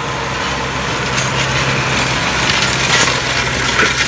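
Massey Ferguson 4299 tractor's diesel engine running steadily as it pulls a disc harrow past, the steel discs crunching and rattling through stony earth, louder in the second half as the harrow goes by close.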